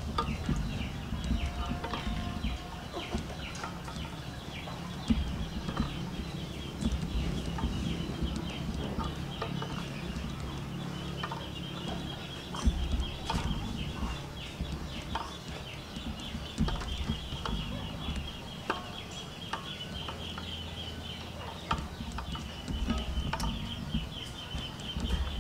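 Chickens clucking in the background over a steady high trill, with scattered short knocks as duck eggs are set one by one into an aluminium pot of water.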